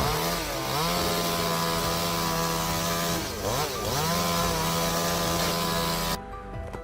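Chainsaw engine running at high revs; its pitch dips and recovers twice. It cuts off abruptly near the end.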